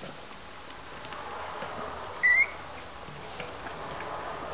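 Newborn border terrier puppy giving one short, high squeak about two seconds in while nursing.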